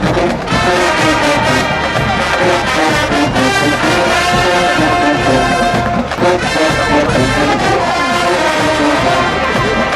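A marching band playing: brass led by trombones and trumpets holding loud sustained chords over a steady drumline beat.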